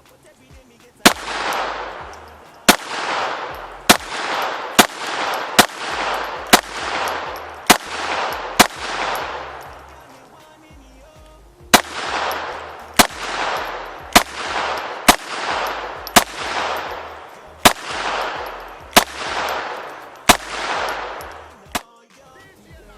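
Taurus TX22 .22 LR pistol fired at a steady pace of about one shot a second, each shot followed by a long echo. It fires two strings of about nine shots each, with a short pause about ten seconds in.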